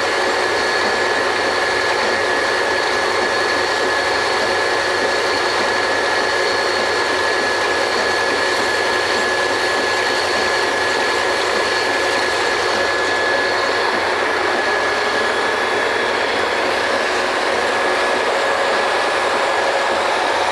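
Drilling rig machinery running steadily: a constant loud mechanical din with a thin, steady high tone over it.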